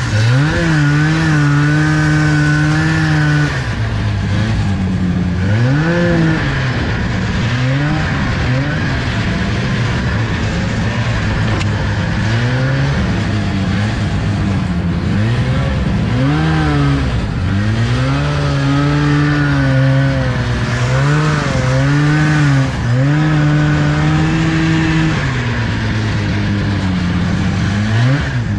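1975 Arctic Cat Panther 440 snowmobile's two-stroke engine under way, revving up and easing off again and again as the throttle is worked, with stretches held at a steady pitch.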